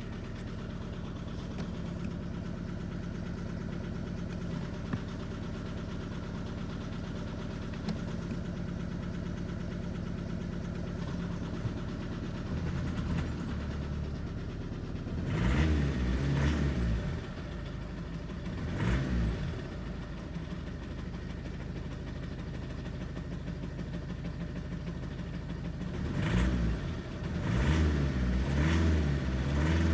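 Audi A3 engine idling rough and misfiring on a cold start, a fault the owner suspects lies in the fuel injectors. Past the middle the throttle is blipped twice, and near the end a few more times, the revs rising and falling each time before settling back to the uneven idle.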